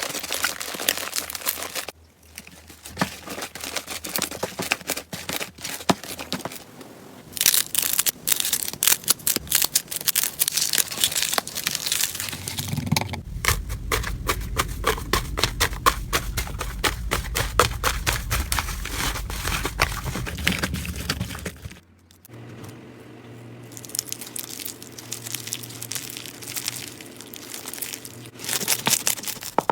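Slime being squeezed and worked by hand: dense, rapid crackling and popping clicks, in several takes that change abruptly every few seconds.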